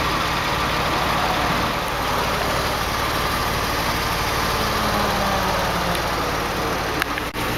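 Porsche 911 Carrera's 3.6-litre flat-six engine idling steadily.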